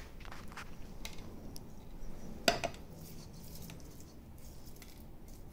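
Hands rubbing coarse salt into a raw beef picanha on a wooden cutting board: faint handling and rubbing sounds with light clicks, and one sharper knock about two and a half seconds in.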